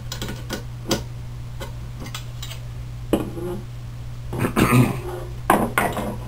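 Scattered metallic clinks and knocks of nuts and washers on the steel threaded rods of a Prusa Mendel 3D printer frame, with printed plastic vertex pieces and rods being handled and set down on a wooden bench. The clinks cluster and get louder about four and a half seconds in, over a steady low hum.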